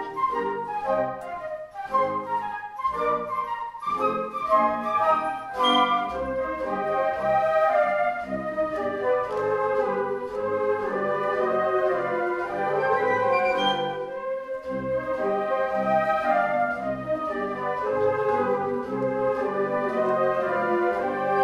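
Live instrumental ensemble playing a classical-style piece: short detached chords for the first few seconds, then smooth sustained melody lines over held notes.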